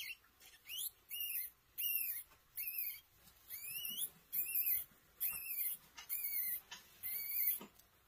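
A newborn hairless mouse squeaking repeatedly while held in a frog's mouth: about ten short, high-pitched squeaks, each wavering up and down in pitch, coming a little under a second apart.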